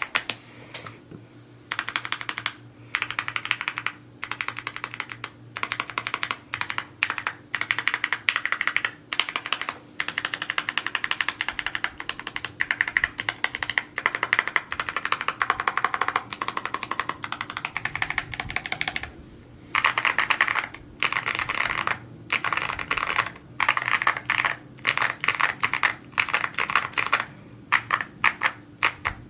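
Fast typing on an Evo80 mechanical keyboard: rapid runs of key presses, broken by brief pauses.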